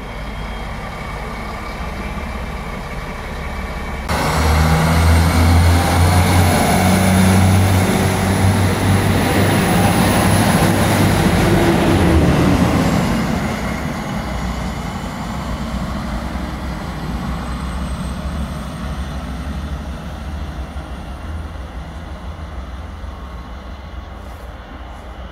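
SWEG Regio-Shuttle diesel railcars running close by: a loud engine drone with a high whine that glides in pitch. The sound jumps up abruptly about four seconds in and fades after about thirteen seconds, leaving a fainter rising whine.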